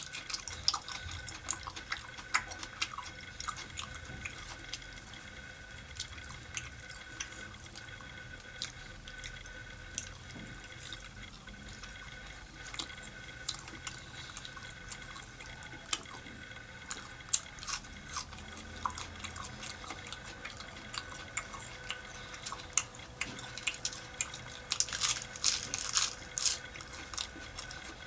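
Close-miked chewing of raw tomato and salad: wet, irregular mouth clicks and smacks, with a busier, louder stretch near the end.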